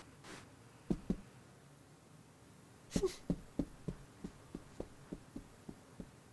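Soft, evenly paced cartoon footsteps of a cat padding away, about three steps a second, starting about halfway through after a couple of faint taps.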